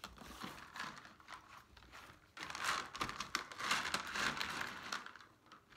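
LECA clay pebbles being scooped by hand from a plastic tray and dropped into a clear plastic pot, a rustling clatter of many small clicks that grows louder about halfway through and fades near the end.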